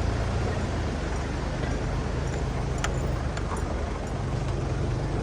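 Car on the move: a steady low engine and road rumble, with a few faint clicks.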